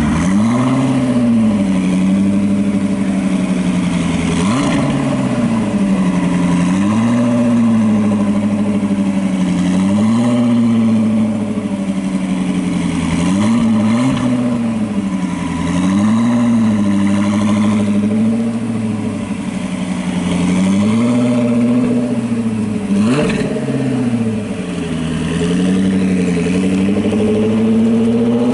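Lotus Esprit V8's twin-turbo V8 running at a fast idle, its pitch rising and falling in light rev blips every two to three seconds, then climbing near the end as the car pulls away.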